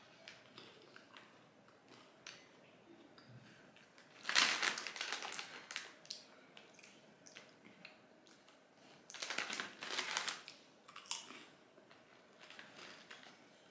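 A foil snack bag crinkling in two bursts, about four and nine seconds in, with a sharp rustle just after the second. Faint chewing of banana-flavoured corn chips can be heard between the bursts.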